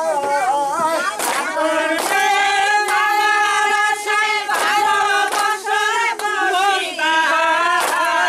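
A group of women singing a folk song together without instruments, with long held notes, broken by a few sharp claps.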